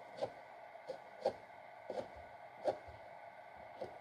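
Kitchen knife chopping kimchi on a plastic cutting board: about six short knocks of the blade hitting the board, irregularly spaced.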